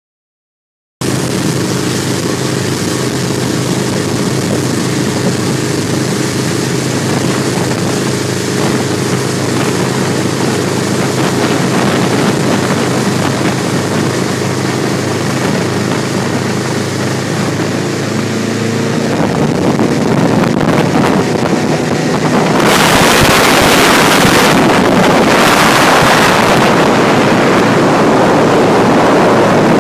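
Powerboat engines running at speed with a steady hum, water rushing along the hull. The sound cuts in suddenly about a second in. About two-thirds of the way through, wind on the microphone and rushing water grow louder and cover the engine note.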